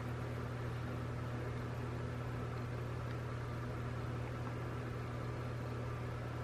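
Steady low hum with a faint even hiss, unchanging throughout; no handling sounds stand out.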